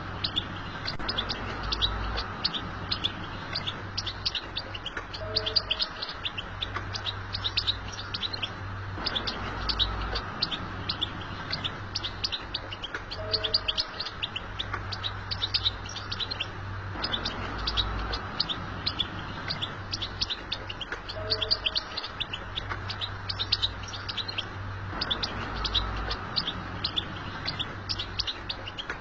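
European goldfinch twittering: a continuous stream of rapid, high chirps and trills, with the same passage of song recurring about every eight seconds.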